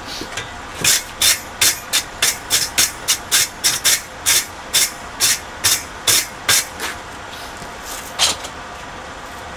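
Hand wire brush scrubbing hot 5160 spring steel on the anvil: about seventeen quick, harsh scraping strokes at two to three a second, then one more near the end. It is cleaning scale off the forge-weld joint.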